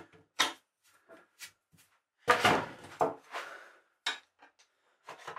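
Wooden knocks and clatter from a heavy timber beam and hand tools being handled on a workbench. There are about a dozen separate knocks, with two louder clunks around the middle.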